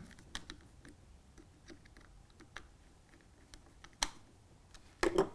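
Screwdriver turning small screws into the plastic housing of an MP10 point motor: faint scattered ticks and clicks, with a sharper click about four seconds in and a couple of louder ones near the end.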